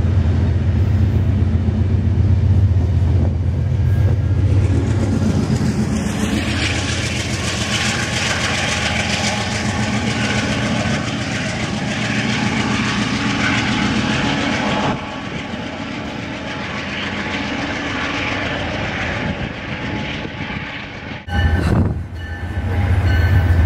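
Amtrak Downeaster passenger train pulling out of the station: Amfleet coaches roll past, and then the GE P42DC diesel locomotive pushing at the rear goes by running under power. The noise drops suddenly about halfway through and fades as the train draws away. An abrupt change near the end brings in a steady low diesel drone.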